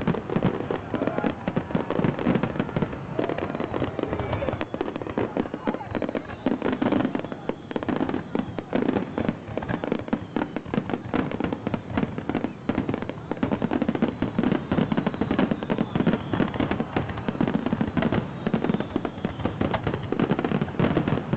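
Aerial fireworks shells bursting in a dense, unbroken barrage during a finale: many bangs a second running into one another, with crackle.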